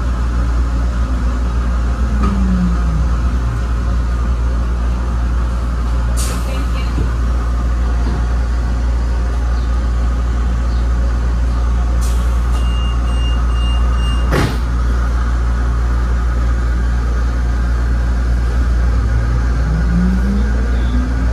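Traction motors of an ABB N5 light-rail car whining down in pitch as the car slows to a stop, then a steady low hum while it stands. Near the end the motors whine back up as it pulls away. In between come a short run of high beeps and a few sharp knocks.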